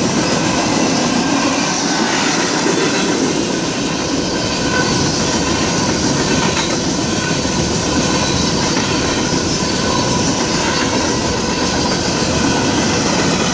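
Freight train of gondolas and covered hopper cars rolling past at speed: a steady rumble of wheels on rail, with faint high squealing tones from the wheels running through it.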